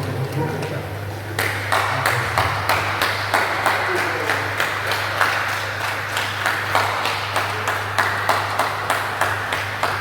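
An audience clapping in a steady rhythm, about two to three claps a second, starting a second or so in, over a background of voices and a steady low electrical hum.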